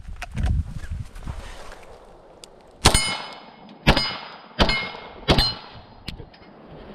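Four shots from a Beretta LTT 9mm pistol, fired about three quarters of a second apart from about three seconds in, each followed by a brief metallic ring.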